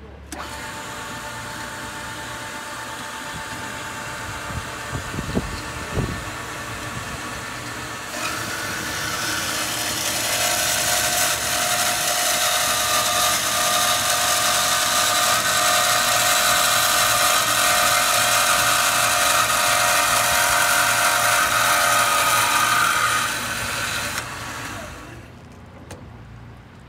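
BOMAR STG 240 G band saw for metal starting and running, with two short knocks about five and six seconds in. About eight seconds in it grows louder with a high ringing as the blade cuts down through a rectangular metal tube under coolant, then dies away near the end as the saw winds down.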